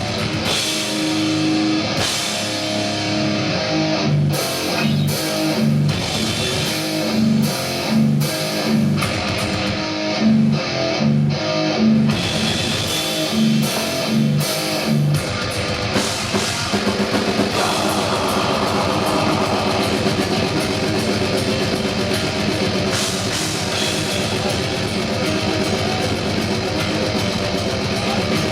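Heavy metal band playing live: distorted electric guitars, bass and drum kit. For about the first half it is a stop-start riff of short, clipped chords and hits, then from about 16 seconds in the band plays on continuously and densely.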